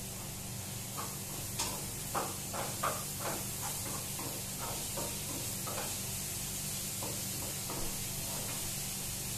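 A cooking utensil clinking and scraping against a pan as food is stirred on the stove: a quick run of strikes about two to three seconds in, then sparser ones, over a steady hiss.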